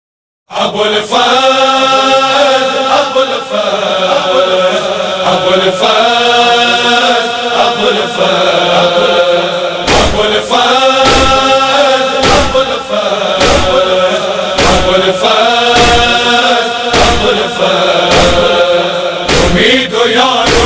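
Wordless chanted vocals of a noha, held in long notes, begin about half a second in. About ten seconds in, a steady heavy thumping beat like matam chest-beating joins, roughly one and a half thumps a second.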